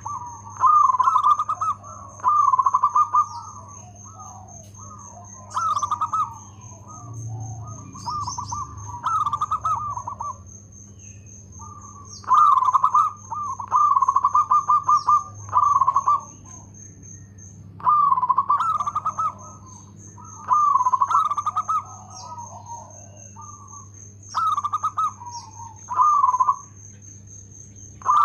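Zebra dove (perkutut) cooing: rapid, rolling staccato phrases, each about a second long, repeated about a dozen times with short pauses between them.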